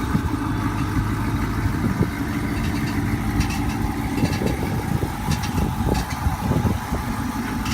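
Chevrolet Corvette C5's V8 engine idling steadily, with an irregular light clicking that comes and goes from about three seconds in: the unexplained click noise the owner is asking about.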